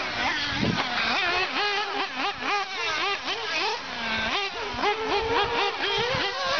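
Several 1/8-scale off-road RC buggies and truggies on track, their motors revving up and down over and over. A high buzzing note rises and falls about twice a second, with more than one car's note overlapping.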